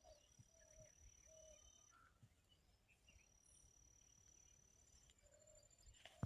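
Faint outdoor ambience: a steady high insect trill that breaks off twice, scattered short low calls, and a small knock near the end.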